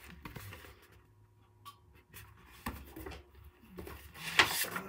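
Faint paper handling in a quiet small room, then a short, louder rustle near the end as a book page is turned.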